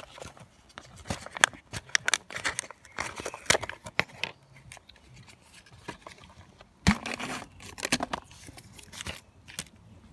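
A Pringles can being opened: the foil seal tearing and crinkling in a run of sharp, irregular crackles and clicks, with a louder crackle about seven seconds in.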